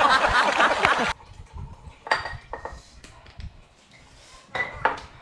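Liquid poured from a small bottle into a drinking glass, stopping suddenly about a second in. A few light clinks and taps of the bottle, cap and glass follow, near two seconds in and again near the end.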